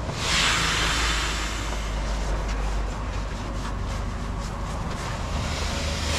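Air hissing out of an inflatable camping mattress's valve as the mattress is rolled up and pressed flat under body weight. The rush of air is strongest at first, goes on steadily, and surges again at the end.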